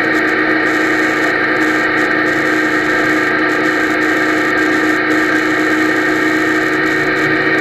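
Motorcycle engine running at a steady cruise with road and wind noise, muffled through an action camera's waterproof housing. A few held tones sit over the noise and keep the same pitch throughout, with no revving.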